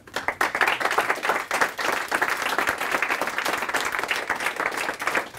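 Audience applauding: many hands clapping at once, starting suddenly and carrying on steadily.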